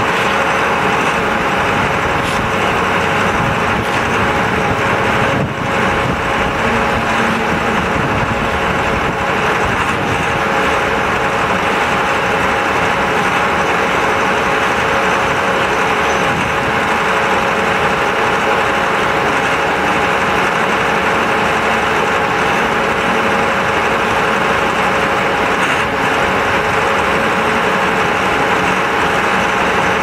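Concrete pump with mixer running steadily: a constant, loud machine din with a steady hum in it. A wheel loader's engine runs alongside in the second half.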